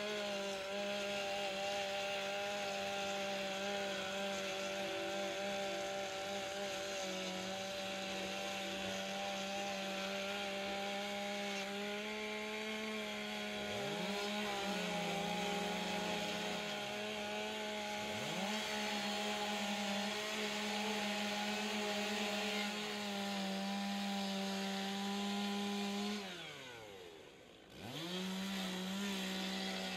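Two-stroke chainsaws running at high revs while cutting through OSB roof sheathing, with the steady engine note broken at times by a second saw revving up and down. Near the end the main saw drops off toward idle and revs back up.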